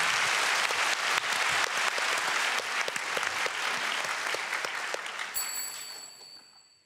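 Large theatre audience applauding, a dense patter of many hands clapping that fades away over the last second or two.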